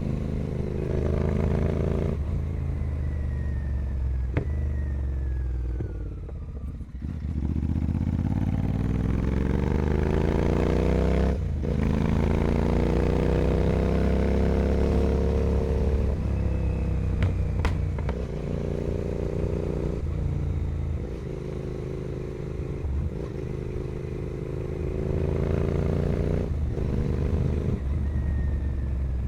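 Royal Enfield Continental GT 650's parallel-twin engine through a full 2-into-1 carbon Carbox Racing exhaust, ridden on the road: the engine note climbs in pitch, drops briefly at each gear change several times, then climbs again.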